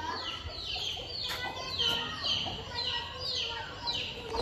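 Newly hatched chicks peeping over and over, high short peeps that each fall in pitch, about two or three a second.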